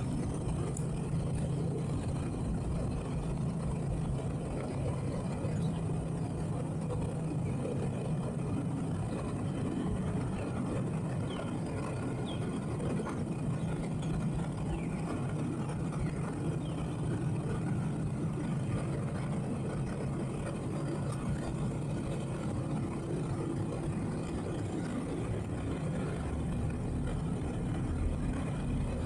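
Towboat's engine running steadily at low speed while it hip-tows a disabled 40 ft cabin cruiser alongside, a steady low drone.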